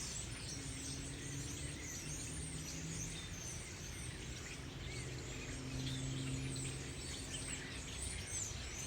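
A dense chorus of many birds chirping at once, with short high chirps overlapping throughout. A faint steady low hum runs underneath.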